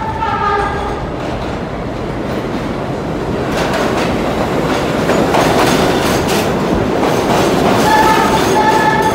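Budd R32 subway train coming into the station on the express track. Its rumble and wheel clatter build from about three and a half seconds in as the cars pass close. Short horn blasts sound at the start and again near the end.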